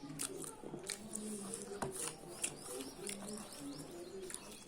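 Close-up chewing of a chicken bone: a run of sharp crunching clicks and mouth sounds. Low cooing calls sound in the background.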